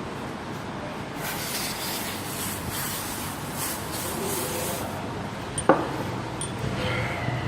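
Several seconds of pulsing, hissing rubbing, as when engine parts are cleaned, then a single sharp click, over a steady workshop background noise.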